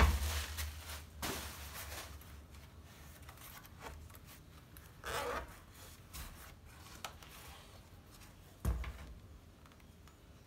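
Hands and tools working on a tablet-laptop during disassembly: scraping and rubbing on plastic with scattered light clicks. A heavy thump comes at the start and another near the end.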